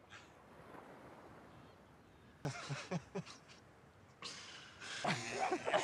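Two men laughing: a few short bursts of laughter about two and a half seconds in, then louder, longer laughter over the last second and a half.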